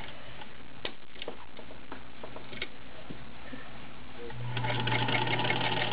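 A few light clicks and rustles of cloth being handled at the machine. About four and a half seconds in, the Singer Featherweight 221's electric motor starts and the machine runs steadily, stitching.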